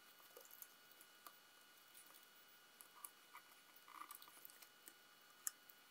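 Near silence with faint, scattered light clicks and taps of multimeter probe tips on a circuit board. The sharpest click comes about five and a half seconds in.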